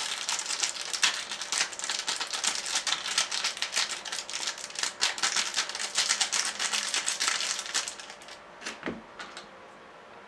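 Plastic seasoning sachet crinkling and rattling as it is shaken and squeezed out over an instant ramen cup: a dense run of rapid small crackles that stops about eight seconds in.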